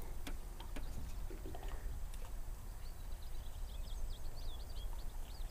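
A low outdoor rumble, like wind on the microphone, with a few faint clicks. From about three seconds in, a bird gives a rapid run of short, high twittering chirps.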